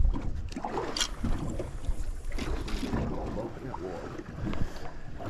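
Wind on the microphone and water against a small boat's hull, with scattered small knocks, the sharpest about a second in.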